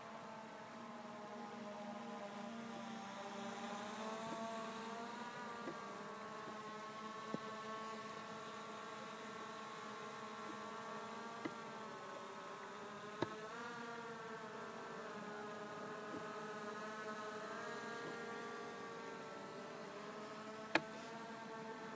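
Skydio 2 quadcopter's propellers buzzing faintly, several whining tones that slowly rise and fall in pitch together as the drone flies. A few sharp clicks break in, the loudest near the end.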